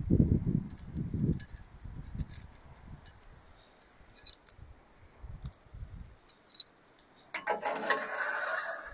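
Small metal clinks of a steel bracket, bolts and nuts being handled against a crane boom, over dull low thumps at first. Near the end comes a scrape of metal on metal lasting about a second and a half, as the bracket is slid along the boom's slotted steel channel.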